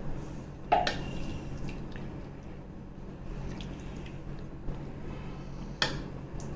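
Thick sambar poured from a steel ladle over idlis in a steel plate: soft dripping and squelching of the liquid, with two sharp clicks, about a second in and near the end, over a steady low hum.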